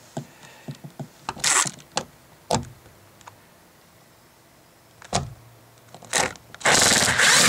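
Screwdriver backing out a Torx screw behind the interior handle of a car's rear door panel: scattered light clicks and taps, a single thump about five seconds in, then a loud rasping noise about a second long near the end.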